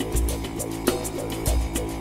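Background music with a steady beat and a deep bass.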